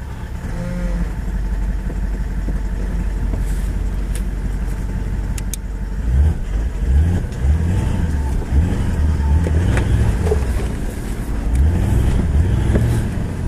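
Toyota LandCruiser 200 series engine heard from inside the cabin, crawling along a rough dirt track in low range. It holds a steady low rumble at first, then from about six seconds in the revs rise and fall again and again as it climbs over the ruts.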